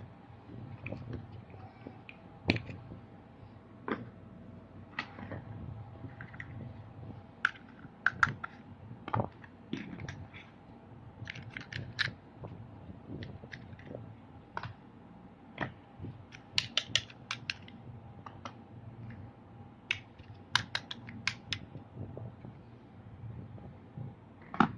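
Small plastic toy vehicles being handled, giving irregular sharp clicks and knocks, some in quick clusters, over a steady low hum.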